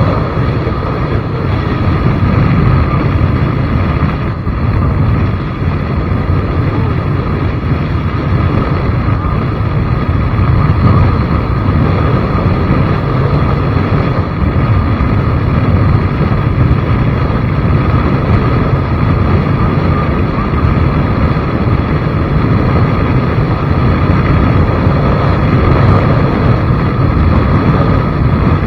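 Loud, steady rush of wind and vehicle noise while riding, with no breaks or sudden events.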